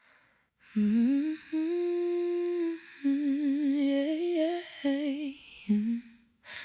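A solo voice humming a slow, wordless melody in several short phrases. Some notes are held steady and others waver with vibrato.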